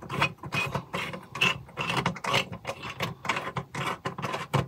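Screwdriver tightening the CPU heatsink screws, a steady run of sharp clicks about three to four a second.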